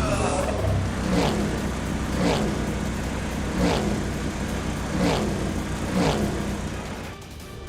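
Cartoon vehicle sound effect: a steady engine-like drone with a falling pitch swoop repeating about every second and a bit.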